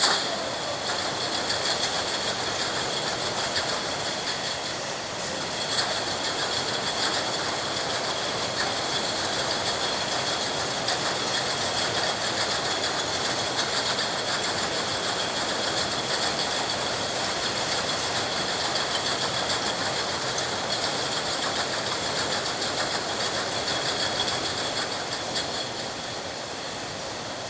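Milk bottling plant machinery running: a dense, continuous mechanical clatter of many quick clicks, with a steady high whine over it.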